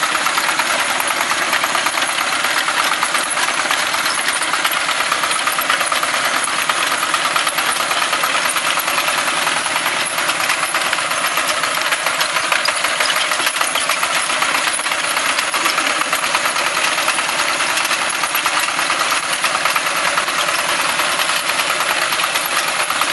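Two-wheel walking tractor's engine running steadily with a fast, even beat, under load while pulling a single-row potato digger through the soil.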